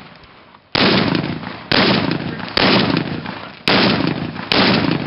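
Five rifle shots fired about a second apart, single aimed shots rather than rapid pairs. Each shot is followed by a long rolling echo that fades before the next one.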